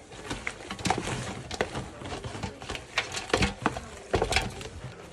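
Kitchen clatter while a sauce is mixed: irregular clicks and knocks of containers and utensils being handled, several of them sharper and louder past the middle.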